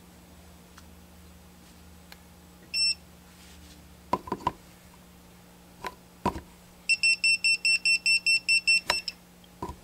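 Non-contact voltage tester pen beeping as it is held against a live outlet, its alarm signalling that it detects voltage. There is one short beep about three seconds in, a few handling clicks, then rapid beeping at about six a second for two seconds near the end.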